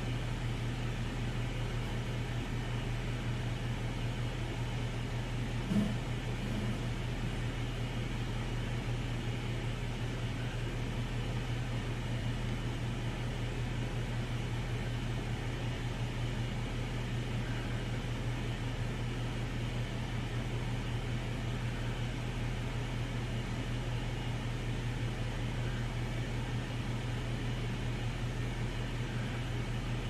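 Steady low mechanical hum with a constant hiss over it, with one brief low knock about six seconds in.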